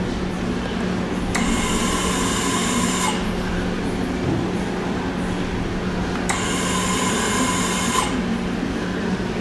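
Steady low machine hum, with two bursts of high whirring hiss, each lasting under two seconds; they start about a second and a half and about six seconds in, and each stops abruptly.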